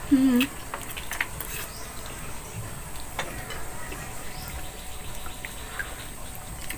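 Quiet eating by hand: scattered light clicks and smacks of fingers on plates and food and of chewing. A brief voiced hum comes right at the start and is the loudest sound.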